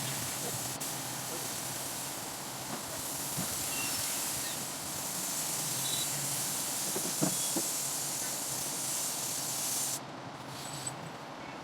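Compressed-air spray gun hissing steadily as it sprays, cutting off sharply near the end.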